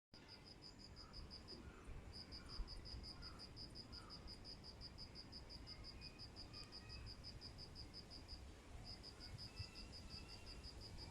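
Insect chirping faintly: a high, even pulse repeated several times a second, pausing briefly twice.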